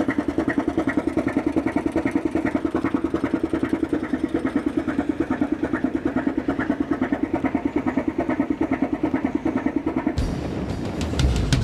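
An old fishing boat's engine running steadily, heard close to its exhaust stack as a fast, even pulse. About ten seconds in, the sound cuts to a rougher noise with scattered clicks.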